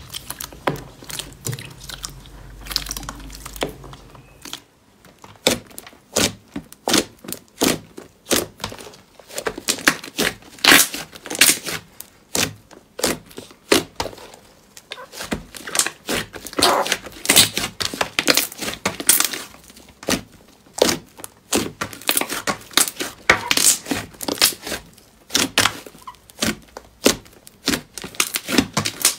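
Hands squishing, pressing and folding slime, giving a dense run of sharp pops and crackles, several a second, as trapped air pockets burst. About four seconds in, the handling changes from a clear purple bubbly slime to a thick pink fluffy slime.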